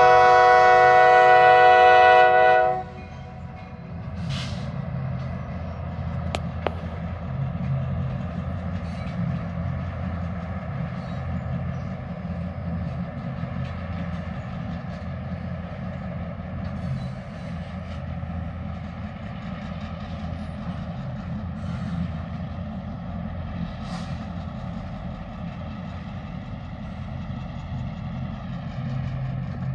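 Norfolk Southern EMD GP38-2 locomotive's air horn sounding one long blast of about three seconds, several tones together. After it, the two GP38-2s' EMD 645 two-stroke V16 diesel engines run steadily as the train passes.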